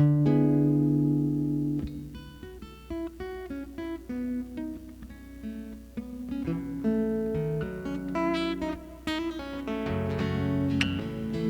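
Solo acoustic guitar playing a song intro. A chord rings out for about two seconds, then a fingerpicked melody of single notes follows, filling out with bass notes near the end.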